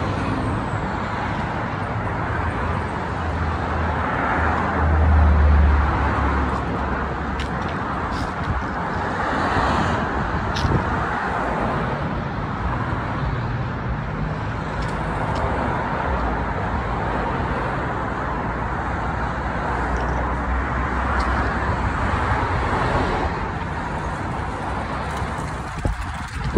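Steady road traffic noise from cars on a busy city street, with one vehicle passing louder about five seconds in.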